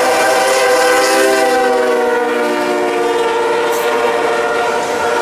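Norfolk Southern freight locomotive's air horn sounding one long, loud chord, its pitch dropping slightly about two seconds in as the lead GE ES44DC passes close by. Freight cars are rolling past beneath the horn.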